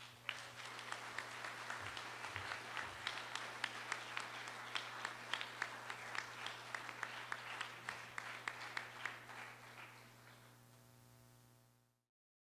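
Audience applauding: a dense patter of many hands clapping that dies away after about ten seconds, over a steady low hum, then the sound cuts off.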